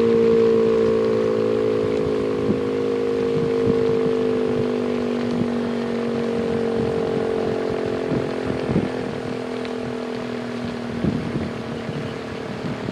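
ACA P-15 outdoor warning siren winding down, its chord-like tone sliding slowly lower and fading as the rotor slows at the end of the test. Gusts of wind bump the microphone in the later part.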